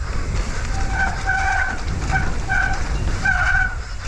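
Wet mountain bike disc brakes squealing in about five short bursts as they are dragged on a descent, over a steady low rumble of wind and trail noise.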